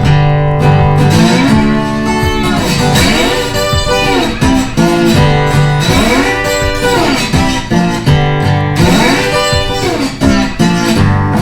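Background music: a guitar-led instrumental with sustained notes that repeatedly bend up and down in pitch.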